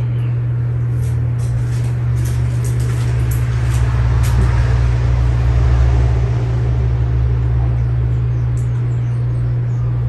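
Regency Cabana ceiling fan running, its motor giving a steady low hum under an even haze of noise. A deeper rumble swells and fades about four to seven seconds in.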